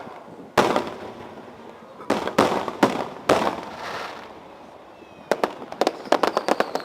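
Fireworks display: aerial shells bursting in five heavy booms that echo away, the first about half a second in and four more close together around two to three and a half seconds. From about five seconds a rapid run of sharp crackling pops follows, with a faint high whistle near the end.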